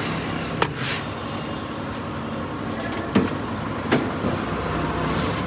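Wheel-balancing machine spinning a mounted car wheel with a steady hum, with a few sharp clicks and knocks from the wheel and machine.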